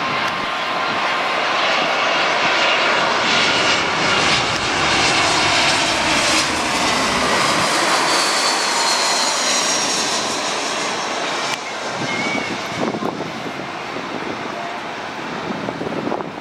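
Twin-engine jet airliner on final approach, gear down, passing low overhead. Its engine noise swells to a loud peak about halfway through, and a whine falls in pitch as it goes past. The sound drops off abruptly about two-thirds of the way through to a lower, steady jet noise.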